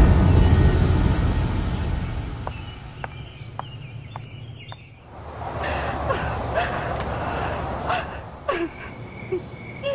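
A low musical drone fades out over the first couple of seconds. From about halfway through, a young woman sobs, with gasping breaths and brief wavering cries.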